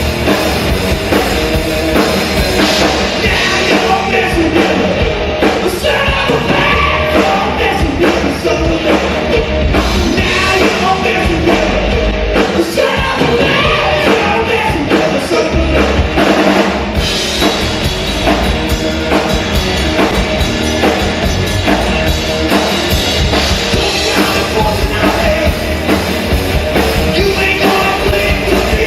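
Loud rock song with a full drum kit, distorted guitars and a singing voice.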